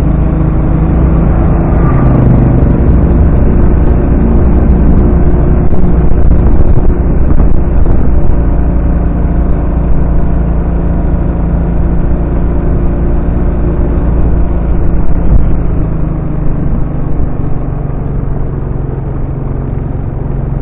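Motorcycle engine running steadily at low road speed, heard from a camera strapped to the bike itself, with a heavy low rumble.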